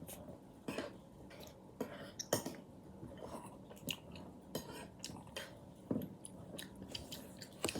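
Tteokbokki rice cakes being chewed and bitten close to the microphone, with irregular short sharp mouth clicks and smacks.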